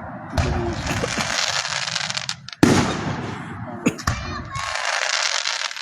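Aerial fireworks bursting overhead. A boom comes about a third of a second in and the loudest bang at about two and a half seconds, with a sharp crack near four seconds and another burst near the end; each bang rumbles away slowly after it.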